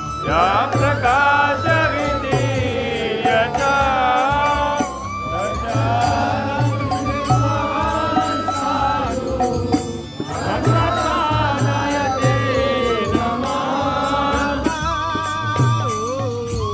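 Devotional chant sung to music, a melodic voice over a steady rhythmic beat.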